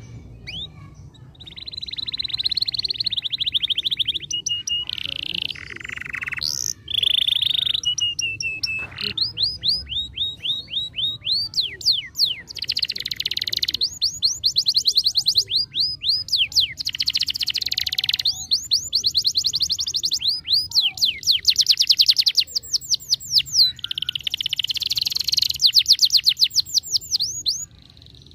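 Canary singing a long, high-pitched song of fast buzzy trills and rapidly repeated sweeping notes, broken by short pauses, that breaks off shortly before the end.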